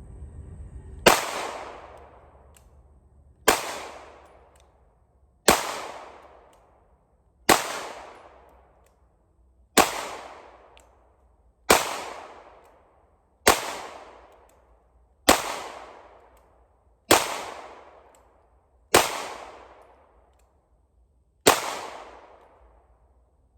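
Eleven single shots from a 9mm Polymer 80 PF940CL pistol (Glock 17 slide on a Glock 19 frame), fired slowly at about one every two seconds. Each shot rings out briefly after the bang. This is the break-in of a freshly built pistol, shot with light loads that the shooter calls not that loud.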